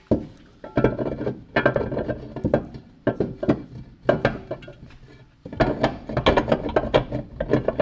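Metal parts and hand tools clanking and clicking in a quick, irregular run, with a quieter stretch in the middle.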